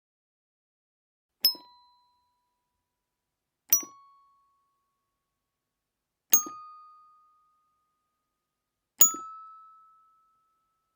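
Infant xylophone struck one note at a time, four slow notes each ringing out before the next, each a step higher in pitch than the last.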